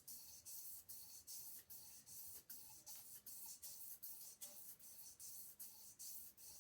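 Abrasive cloth strip sawed back and forth around a crankshaft journal to polish it, a faint, even rasping at about three strokes a second.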